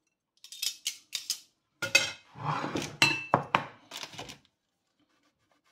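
Metal kitchen tongs clinking and scraping against ceramic bowls as pieces of fried guanciale are picked up and laid on a plate of pasta. One clink about three seconds in leaves a short ring, and the clatter stops about a second before the end.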